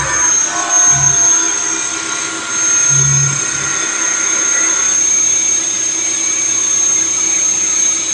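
Vertical machining centre running, with a steady high-pitched whine over a hiss of machine noise. A few short low thumps come in the first four seconds.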